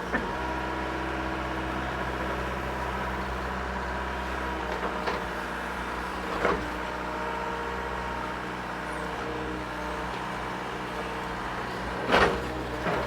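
Mini excavator's diesel engine running steadily, with a few short knocks and clanks, the loudest cluster near the end.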